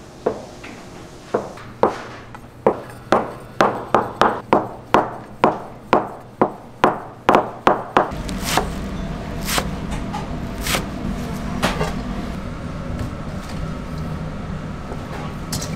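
A cleaver cuts down through a stack of dough sheets around a round wooden template, knocking against the wooden board about twenty times in quickening strokes. The strokes stop about halfway through, and a steady low hum with a few scattered clicks follows.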